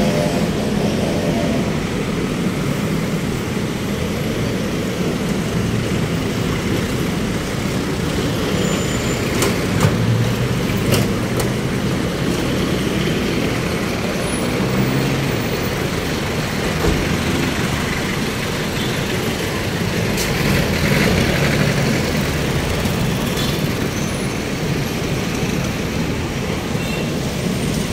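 Steady road traffic noise from cars, trucks and buses running past, with a couple of short clicks about ten seconds in.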